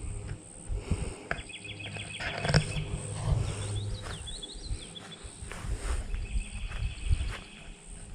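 Outdoor swamp wildlife: an insect chirping in a steady, fast pulse, with short runs of bird calls in the middle and low rumbling noise with a few knocks underneath.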